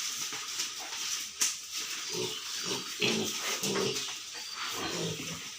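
Young Duroc piglets, about 50 days old, grunting in short irregular calls, several at once. A sharp click about a second and a half in.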